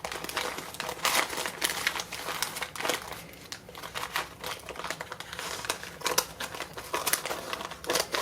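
Packaging being crinkled and rustled by hand as items are pulled from a shipping box, with a steady run of irregular crackles and small clicks.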